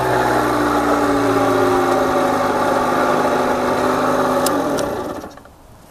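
Peugeot XPS moped's liquid-cooled Minarelli AM6 two-stroke engine idling, its pitch slowly sinking; a little after four seconds in come two clicks, then the engine winds down and stops, switched off at the key.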